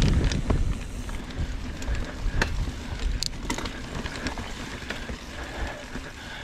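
Mountain bike rolling on a dirt trail: wind rumble on the microphone that drops away about a second in, then tyre noise with scattered sharp clicks and rattles from the bike.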